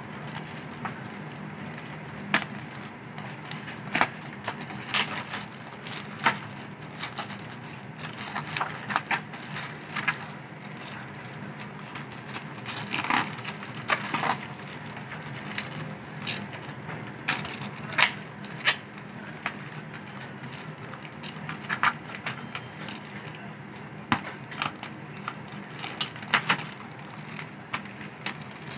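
Bubble wrap and plastic packaging crinkling and crackling as they are cut and pulled off a parcel, in irregular sharp crackles and snaps. A steady low hum runs underneath.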